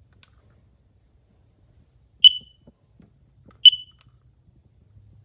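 Kidde Worry-Free smoke and carbon monoxide alarm giving two short, high-pitched beeps about a second and a half apart.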